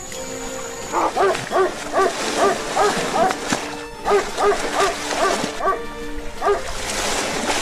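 A dog barking in rapid, evenly spaced yelps, about two to three a second, over background music.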